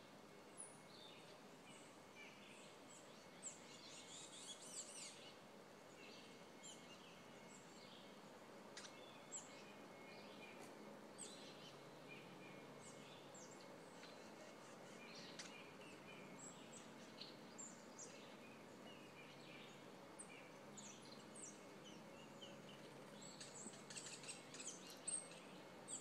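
Faint birdsong: scattered chirps and short calls from several birds, over a steady low hiss.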